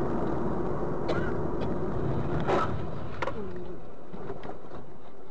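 Steady road and engine noise inside a moving car, as picked up by a dash cam, with a short sharp sound about two and a half seconds in and a few brief voice-like cries around it.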